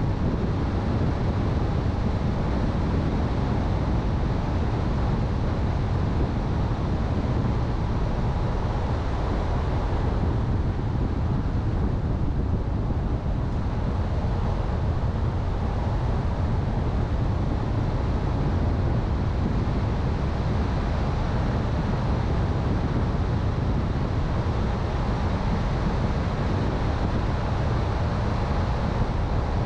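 A car driving along a road: a steady low rumble of tyres, engine and wind noise.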